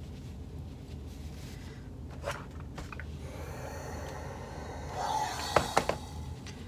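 Steam iron pressing fabric with a hiss, then three quick knocks as the iron is set down on a cutting mat.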